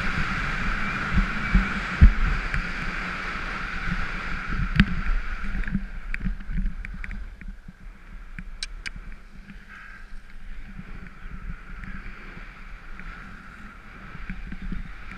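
Skis sliding and carving over snow, with wind rushing over the action camera's microphone and bumps through the skis. It is louder and rougher for the first half and quieter after about halfway, with a few sharp clicks.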